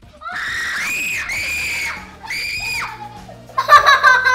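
A young girl screaming three times, high-pitched, as her hand touches a live goldfish in a water tank she cannot see. Loud music comes in near the end.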